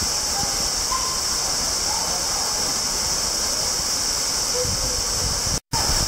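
Small waterfall spilling into a rock pool: a steady rushing hiss of falling water, cut off for an instant near the end.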